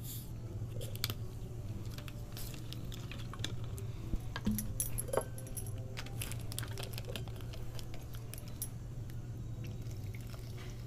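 Scattered small clicks and plastic crackles from soft-drink bottles, caps and thin plastic ice-pop packets being handled, over a steady low hum.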